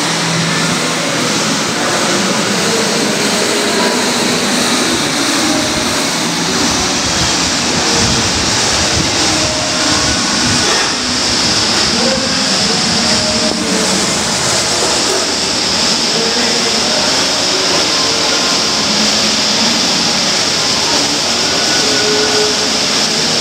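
KayakPro kayak ergometer's flywheel whirring as the paddle is pulled through continuous strokes, a steady loud rush.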